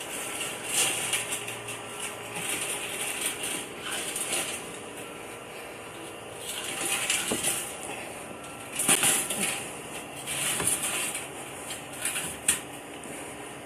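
Irregular scuffing, rustling and clinking as a tiger transport cage is carried, with a few sharp knocks, the loudest about nine seconds in and near the end.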